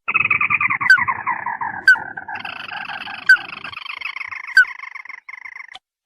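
Recorded crake calls played as a bird lure. A rapid rattling trill falls in pitch, then about two seconds in a layered chattering trill takes over and runs steadily until it stops near the end. Short sharp call notes cut through it about every second.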